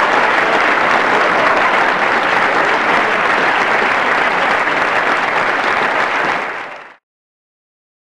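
Audience applause, a dense steady clapping that fades out about six and a half seconds in.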